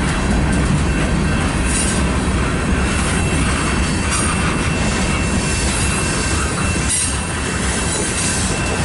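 Covered hopper cars and a tank car of a freight train rolling slowly past: a steady rumble of steel wheels on rail, with a thin, steady wheel squeal over it and a few clanks.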